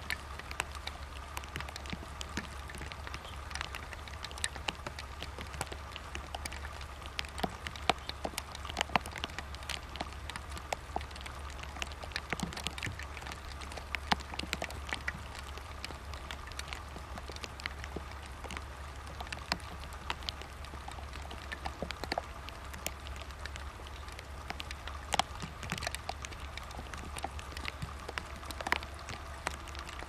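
Irregular patter of small ticks and clicks, several a second at uneven spacing, over a steady low hum and a faint steady tone.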